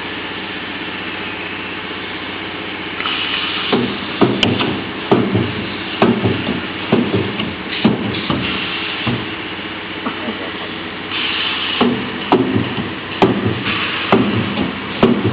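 Spiral fan guard welding machine running under test: a steady hum with a hiss that comes and goes, and a sharp clank about every two-thirds of a second in two runs as it welds the turning wire guard.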